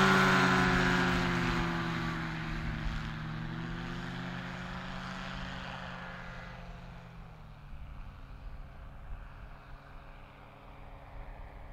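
Weight-shift microlight trike's engine and propeller at full power on takeoff, fading steadily as the aircraft climbs away, its pitch sinking a little as it goes.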